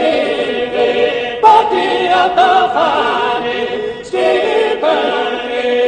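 Choir singing slow, held notes, with a new phrase beginning about one and a half seconds in and again about four seconds in.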